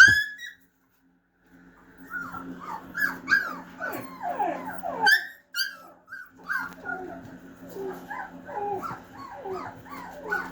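Siberian husky puppy whining and yipping in a rapid string of short cries that fall in pitch. The cries start about a second and a half in, after a brief dead silence, and run on densely. A faint steady low hum sits underneath.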